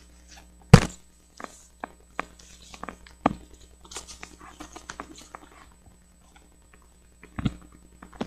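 Handling noise from objects being moved and set down on a desk: a series of sharp knocks and clicks, the loudest about a second in, another near three seconds and a double knock near the end.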